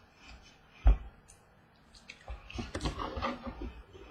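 A single sharp thump about a second in, then about a second and a half of trading cards and pack wrappers rustling and flicking as they are handled.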